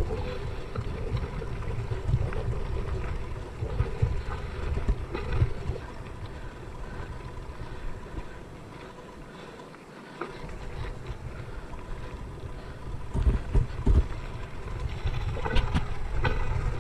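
Yeti SB5 mountain bike ridden over rocky singletrack: a steady rumble of wind and tyre noise on the handlebar camera's microphone, with scattered knocks as the wheels hit rocks. It eases off briefly about two-thirds of the way through, and sharper thumps follow soon after.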